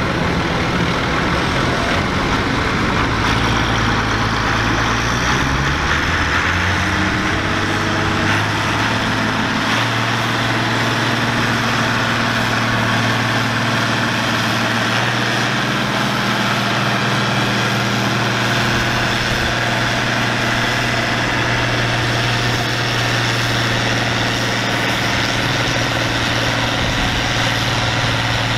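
Allis-Chalmers One Ninety XT tractor engine running under heavy load as it pulls a weight-transfer sled. The pitch climbs over the first several seconds, then holds steady and loud.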